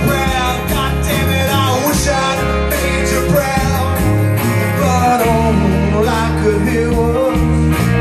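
Live country-rock band playing: electric and acoustic guitars over bass, with a melody line bending in pitch and a steady beat.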